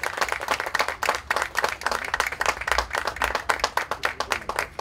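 A small seated audience applauding: many hands clapping densely and unevenly.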